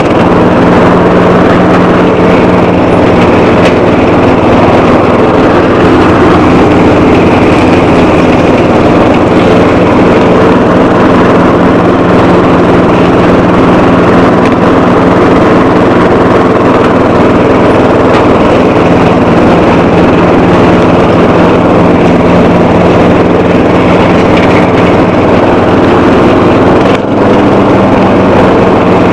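A 12 hp Bolens lawn tractor engine runs steadily under load while the tractor pushes through dense brush. The engine sound dips briefly about two seconds before the end.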